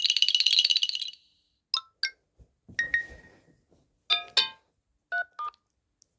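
Short notification tones from a Samsung Galaxy A36 5G, previewed one after another. It opens with a high, fast trilling chime lasting about a second. A series of brief chimes and blips follows: two near two seconds in, one around three seconds, a pair around four seconds, and two short blips near the end.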